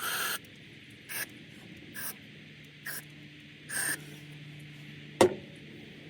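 Aerosol carb cleaner sprayed in five short hissing bursts into a Holley carburetor's needle-and-seat passages, cleaning out a needle and seat suspected of sticking. About five seconds in, a single sharp clack, louder than the spraying.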